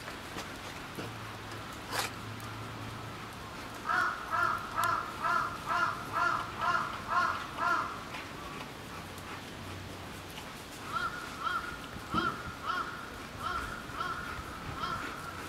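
A crow cawing in two runs of rapid, evenly spaced caws, about three a second, the first run about four seconds long and the second starting near the end. A single sharp click comes before them.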